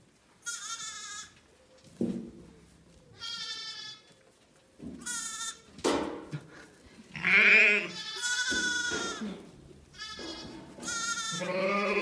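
Herdwick sheep bleating: new lambs give a string of high-pitched bleats, mixed with a few deeper ewe bleats, the loudest of them about seven seconds in.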